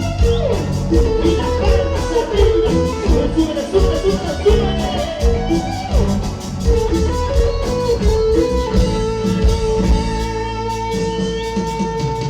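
Live band playing an instrumental passage: a lead guitar melody over a steady low bass and drum beat.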